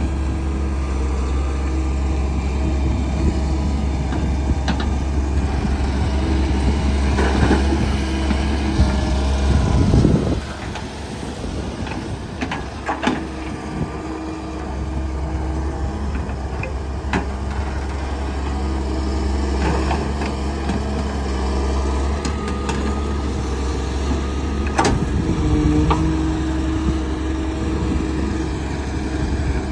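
Doosan wheeled excavator's diesel engine running under digging load, with sharp knocks from the bucket and soil several times. The low rumble eases about ten seconds in.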